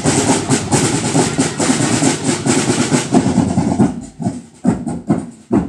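Drum and lyre marching band playing, with snare drums beating a fast, dense cadence; about four seconds in it thins to separate, spaced-out hits.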